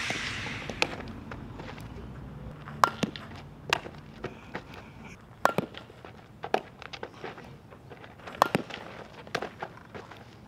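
Softball infield practice. A string of sharp knocks and smacks comes from the ball off bat and glove, with footsteps scuffing on the dirt. The loudest knocks come about every three seconds.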